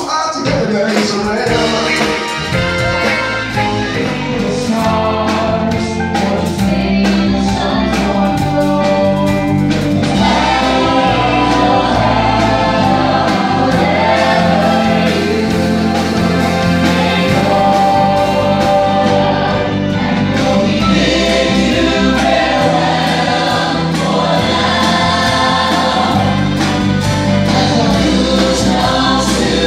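A group of singers singing into microphones in harmony over a live band, an ensemble number played loud in a large theatre hall.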